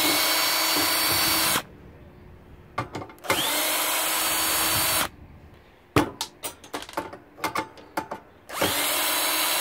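Cordless DeWalt drill spinning a 1/4-inch nut driver to back screws out of a dishwasher's sheet-metal frame. It runs three times, each run a steady whine of about two seconds that spins up quickly at the start. A series of light clicks and taps comes between the second and third runs.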